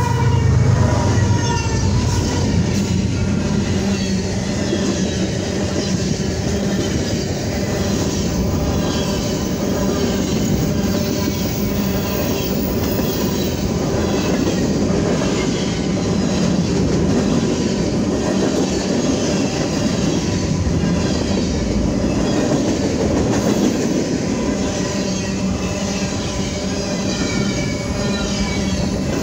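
BNSF freight train passing close by: the locomotive goes past at the start, then freight cars (covered hoppers and boxcars) roll by with steady, loud wheel-and-rail noise and a thin steady ringing tone.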